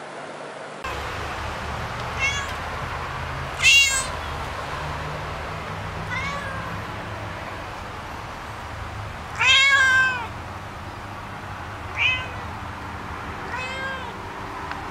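A domestic cat meowing six times, each meow rising and then falling in pitch. The loudest are about four seconds in and around ten seconds in, where there is one long meow. A steady low hum runs underneath.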